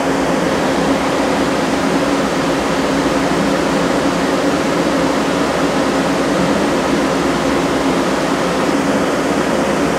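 Doosan Puma 240B CNC turning center standing powered up: a steady fan-like rush with an even low hum that does not change.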